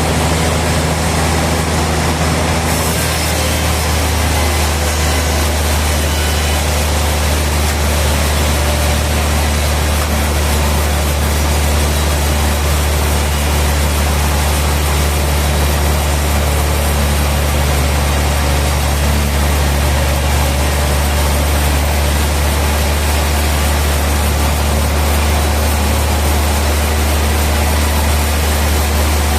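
Sawmill machinery running steadily, a deep constant hum under an even mechanical noise with no breaks.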